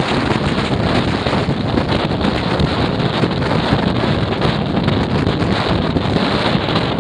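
Steady heavy wind noise on the microphone of a camera mounted on the front cowl of a moving Suzuki Address V125G scooter, masking the engine and road sound.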